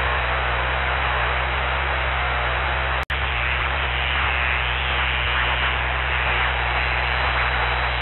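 Steady drone and hiss of a Cessna 172 in flight, heard through the headset intercom, with a low steady hum underneath and a momentary dropout about three seconds in.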